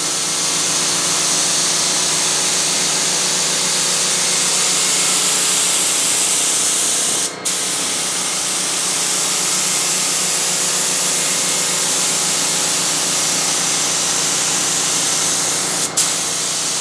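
Primer spraying in a steady, continuous hiss, cut off briefly twice, about seven seconds in and again near the end, as the spray is released and restarted between passes.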